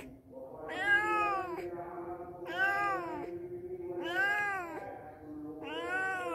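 Cat meowing four times, a second and a half to two seconds apart, each call rising then falling in pitch; the last is still going at the end.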